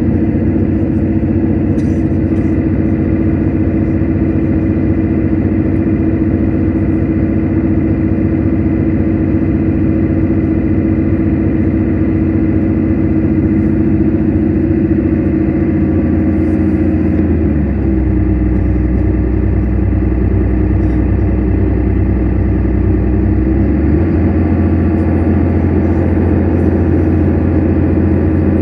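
Mercedes-Benz Citaro city bus heard from inside the cabin at motorway speed: a steady diesel engine drone with road and tyre noise. The low engine note changes twice in the second half.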